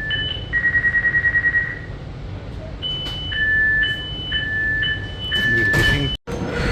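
Electric commuter train's door warning signal: an alternating high–low two-tone beep, each tone about half a second long, broken about half a second in by a rapid beeping on one tone for just over a second before the two-tone pattern resumes. It warns that the doors are about to close before departure.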